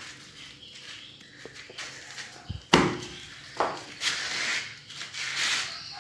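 A door being opened: a sharp knock about three seconds in, then scraping and rustling.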